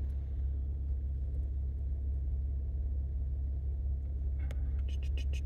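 Steady low rumble of a car heard from inside the cabin, with a few short clicks near the end.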